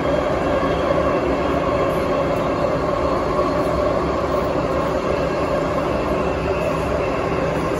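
Cabin noise of an MTR M-train electric multiple unit running between stations, heard inside the car beside the gangway: a steady rumble of wheels on rail with a steady tone over it.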